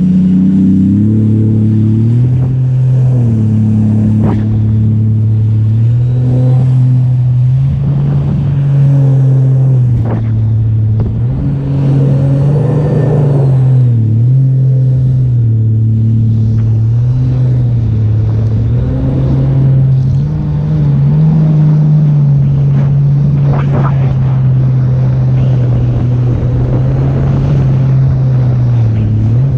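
Sea-Doo RXP-X 300 jet ski's supercharged three-cylinder engine running under way, its pitch rising and falling every few seconds as the throttle is worked.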